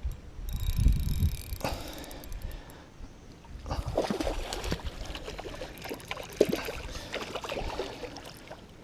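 Water splashing and sloshing as a hooked largemouth bass thrashes at the surface near the bank, with scattered clicks from the rod and reel being handled.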